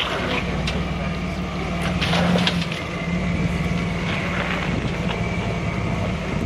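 Jeep engine running steadily while rock crawling, with a few sharp knocks or scrapes about two seconds in.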